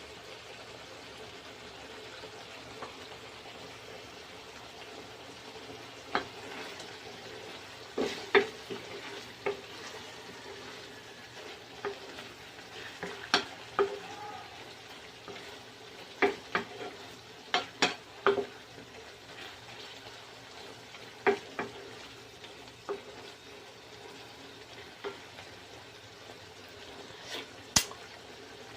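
Giniling (ground meat with beans) sizzling steadily in a frying pan while a metal utensil stirs it, with irregular sharp knocks and scrapes of the utensil against the pan.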